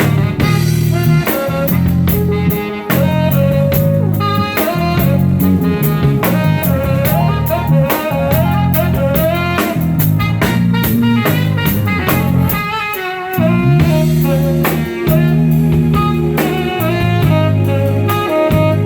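Live band playing a bluesy jazz instrumental, with drum kit, bass and a lead melody line, steady and continuous with a brief drop in level about two thirds of the way through.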